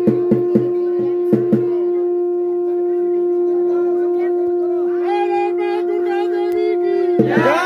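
Conch shell (shankh) blown in one long, steady note with a clear ringing overtone. Sharp strikes about three a second sound over it for the first second and a half, and people's voices rise over it in the last few seconds.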